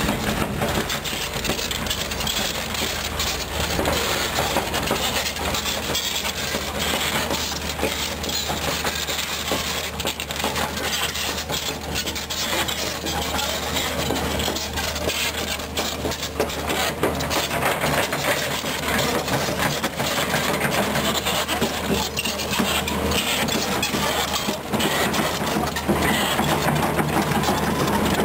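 Volvo EC210B crawler excavator tracking up a loose gravel slope: its steel tracks grinding and crunching over gravel and stones with many small clinks, over the steady hum of its diesel engine.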